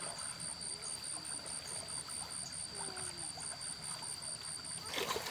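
Steady trickling of flowing water, with a high, evenly pulsed chirping about four or five times a second that stops near the end, and a brief loud rustle or clatter about five seconds in.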